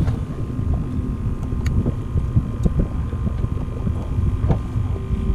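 Wind rumbling on the microphone over the steady hum of a small boat's motor, with a few light clicks and knocks.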